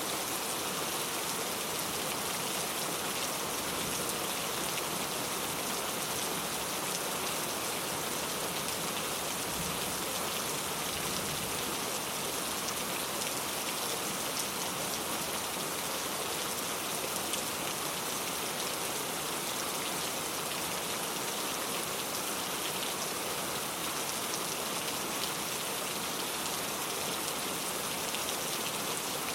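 Steady rain falling, an even hiss with fine scattered drop patter throughout.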